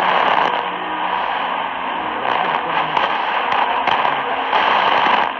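Sony ICF-SW7600G shortwave receiver tuned to Radio Tarma on 4775 kHz AM, a weak long-distance signal: steady hiss broken by frequent crackling static crashes, with faint programme audio barely showing through.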